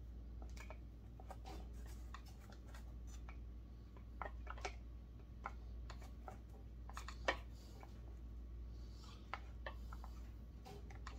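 Faint scattered clicks and taps of needle-nose pliers and a rubber fuel hose against a chainsaw's plastic housing as the fuel line is worked up through it. A cluster of clicks comes about four seconds in and the sharpest click about seven seconds in.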